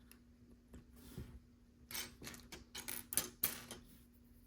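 Small plastic LEGO pieces clicking and rattling as they are handled and sorted through, a cluster of quick light clicks starting about two seconds in.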